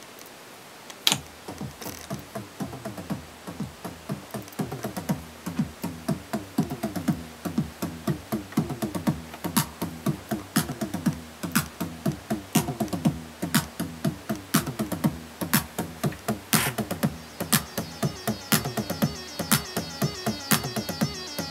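An acid house jam starts about a second in: a Roland TR-909 drum machine beat under a repeating synthesizer bassline of short notes, each falling in pitch. Near the end a brighter, busier high pattern joins in.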